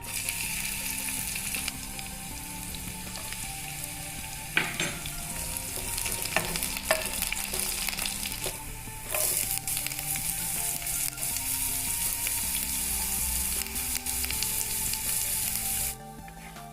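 Food sizzling as it fries in hot oil in a pan, with a few sharp scrapes and knocks of a spoon stirring it between about 4 and 9 seconds in. The sizzling cuts off suddenly near the end.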